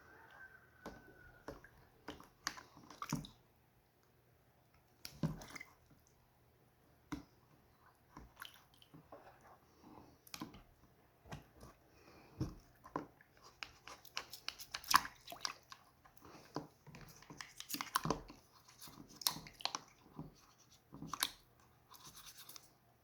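A toothbrush scrubbing a Swiss Army knife during cleaning: short, scratchy brushing strokes with small clicks. The strokes are sparse at first and come quickly and steadily in the second half.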